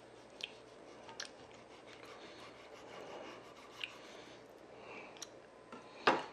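Kitchen knife slicing through a raw salmon fillet on a wooden cutting board: faint scraping, a few light clicks of the blade, and a sharper knock about six seconds in.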